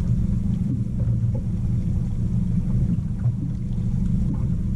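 Small fishing boat's engine idling: a steady low rumble.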